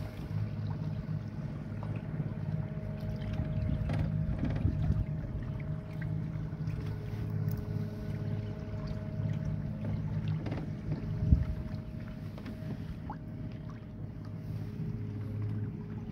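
Small donut boat's motor running steadily, a low hum with a faint thin whine above it. A single knock sounds about eleven seconds in.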